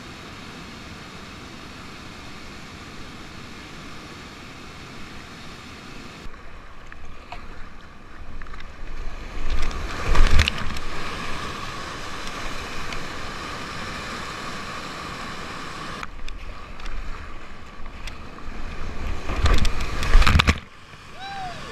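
Waterfall and churning whitewater rushing close to a kayak. The sound turns muffled as water washes over the camera's microphone, with loud crashing splashes about ten seconds in and again near the end.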